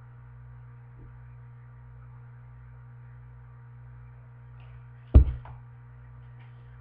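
Steady electrical hum from the recording device, broken once about five seconds in by a single sharp thump as the hardcover picture book is handled close to the microphone.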